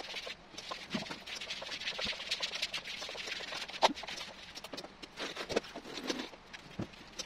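Bare feet padding across a wet floor: a steady run of soft pats and light knocks.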